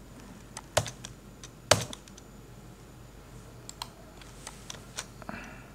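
Irregular keystrokes and clicks on a computer keyboard, a dozen or so scattered taps with the loudest a little under two seconds in.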